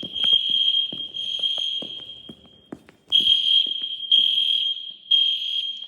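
Fire alarm horn sounding close by, a loud high-pitched electronic tone in blasts: three in a row, a short pause, then three more. This is the temporal-three evacuation pattern of a fire alarm system under test.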